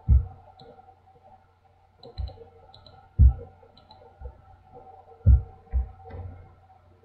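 Working at a computer desk: five dull low thumps and a few light clicks, over a steady low electrical hum.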